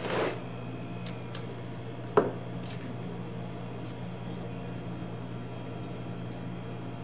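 Workshop room tone: a steady low electrical hum, with a short scraping rustle at the very start and a single sharp tap about two seconds in, then faint scattered ticks of handling.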